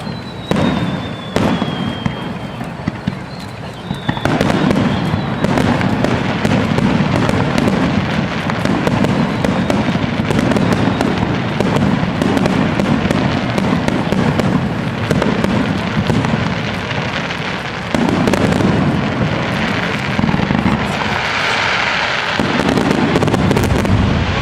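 Fireworks display: a few separate bangs, then from about four seconds in a dense, continuous barrage of rapid booms from a starmine, with a burst of crackling near the end.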